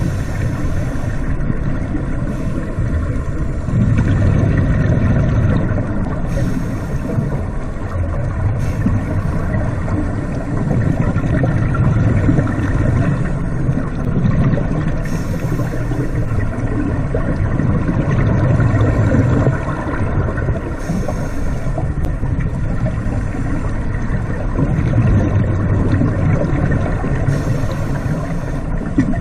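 Underwater scuba dive sound: a steady muffled rumble with regulator breathing, the bubbling rumble of exhalations swelling and fading and a brief hiss about every six or seven seconds.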